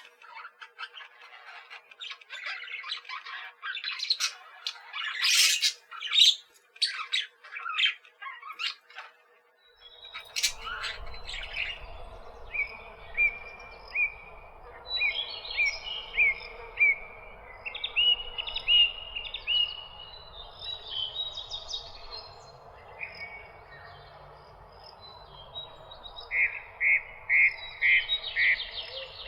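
A flock of aviary birds chirping and squawking in a dense, overlapping chatter. About ten seconds in, a steady low background noise starts and the calls turn into runs of evenly repeated chirps.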